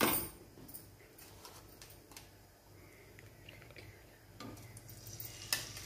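A sharp knock at the very start, then faint, scattered ticks and light clicks of utensils being handled, over a low hum that grows louder in the last second or so.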